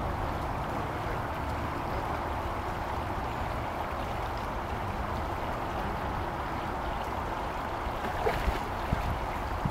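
Shallow creek water running: a steady, even rush, with a few short sharp sounds near the end.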